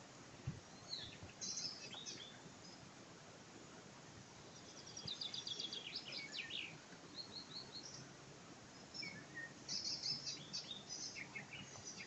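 Songbirds singing: short, high chirps and quick runs of repeated notes, busiest about five seconds in and again near ten seconds, over a faint background hiss.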